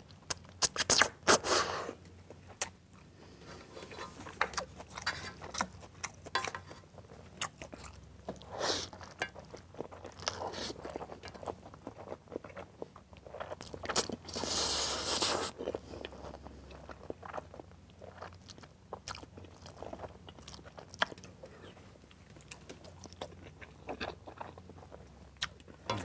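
Close-miked slurping of saucy instant noodles in black-bean sauce, in a burst of quick slurps about a second in and one long slurp around fourteen seconds in, with wet chewing and small mouth clicks in between.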